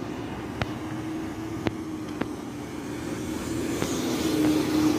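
Police car driving past, its engine hum and tyre noise growing louder as it comes close near the end, with a few sharp clicks.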